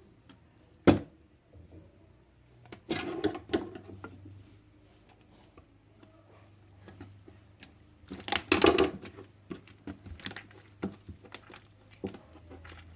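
Slime being squeezed and worked by hand: sticky squelching with crackling little pops, in two louder bouts about three and eight seconds in, with scattered small clicks between. A single sharp click just before the first second.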